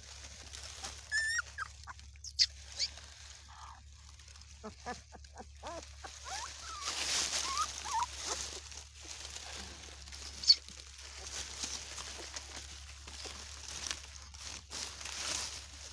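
Newborn Bully Mastiff puppies giving short, faint, high squeaks and whimpers, with rustling of the dry straw bedding.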